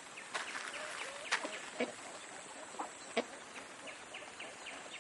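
Faint, scattered short clucks and calls from a flock of free-ranging chickens and ducks, a few single calls standing out over the rest.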